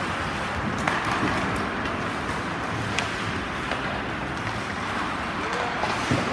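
Ice hockey play on a rink: a steady hiss of skates on the ice and arena noise, broken by a few sharp clacks of stick and puck, about a second in, at three seconds, and near the end.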